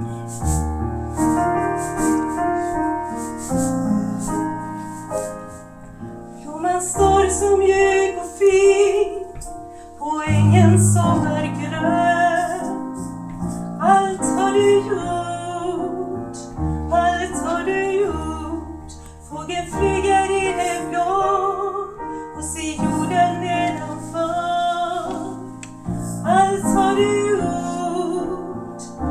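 Piano introduction with steady chords, then a woman's voice begins singing a slow song over the piano accompaniment about seven seconds in.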